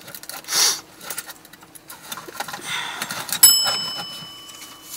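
Handling rustle, then a single sharp metallic ting about three and a half seconds in that rings on and fades.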